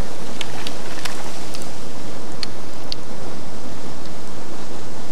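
Steady loud rushing of wind on the microphone, with a few scattered sharp clicks in the first three seconds.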